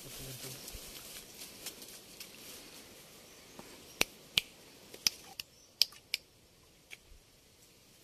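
Light rustling in dry grass and undergrowth, then a run of sharp snaps and clicks about halfway through, like dry twigs and stems breaking.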